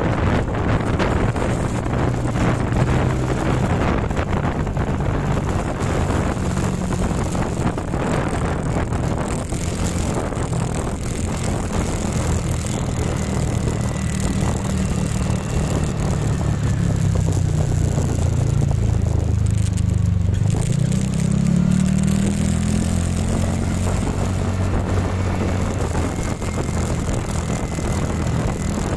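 Motorbike engine running while riding, with wind and road noise on the microphone. The engine note sinks as the bike slows and then climbs again as it speeds back up about twenty seconds in.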